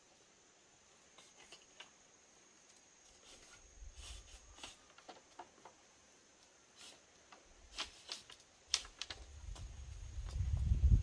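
Scattered, irregular light clicks and taps, growing more frequent in the second half, with a low rumble building up near the end.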